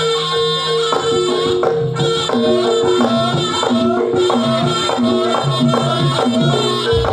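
Jaranan accompaniment music: a traditional Javanese percussion ensemble playing a fast, repeating pattern of short tuned struck notes over a steady pulsing beat and drum strokes.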